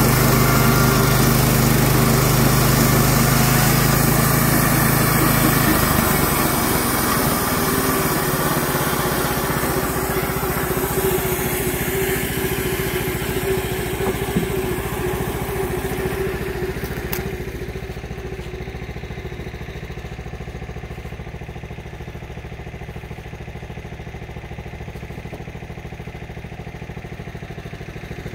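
Kohler Pro 15 gasoline engine of a Clarke bandsaw mill running hard while the band blade cuts white pine. About six seconds in the sound changes, and from around 17 s it settles into a quieter, steady lower running as the engine comes off load toward idle.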